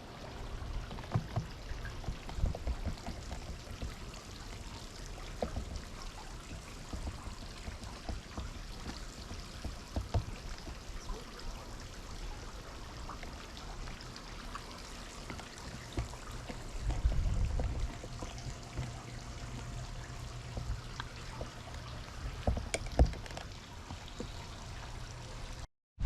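Wind buffeting the microphone with an uneven low rumble and a stronger gust about two-thirds of the way through. Scattered light clicks and taps run underneath.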